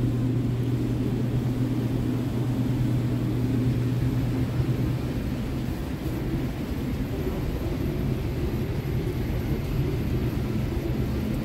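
Steady low hum of supermarket refrigerated display cases and glass-door freezers, with a faint high whine over it.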